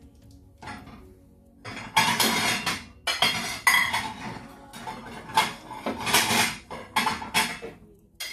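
Kitchen dishes and utensils clattering, a run of loud irregular clanks and knocks starting about two seconds in and stopping shortly before the end.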